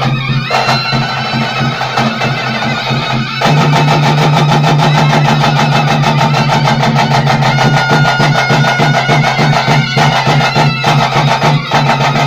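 Traditional temple band playing: a wind pipe carries the melody over a steady drone and regular drumming. The band gets louder about three and a half seconds in.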